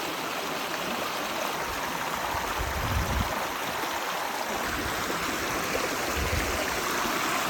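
Creek water rushing and babbling steadily over rocks, the stream running high after recent rain. Two brief low bumps come about three and six seconds in.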